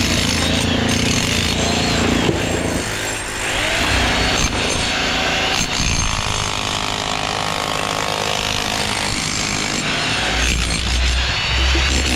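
Construction-site power tools and machinery running continuously, the pitch shifting now and then.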